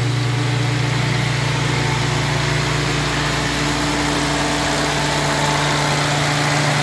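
1955 M38A1 Army Jeep's Willys F-head four-cylinder engine idling steadily. The throttle is set slightly above idle because the engine is still cold after its first start in three years.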